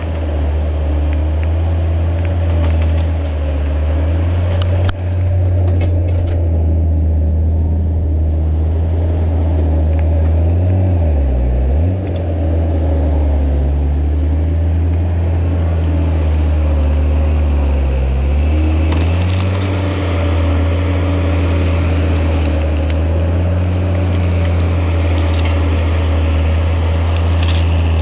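Engine of land-clearing machinery (skid steer or stump grinder) running steadily under load. Its pitch dips briefly about eleven seconds in and recovers, as if the engine bogs for a moment. Scattered rattling clicks sound over it in the second half.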